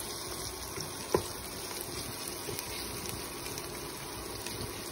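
Chopped onion frying in hot oil in a pan, a steady sizzle as it is cooked toward light brown, with a single sharp knock about a second in.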